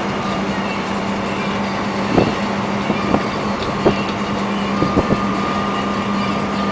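UD Quon heavy truck cruising, heard from inside its cab: a steady engine hum over tyre and road noise, with a few short sharp cab rattles and a faint thin high whine that comes in about three seconds in.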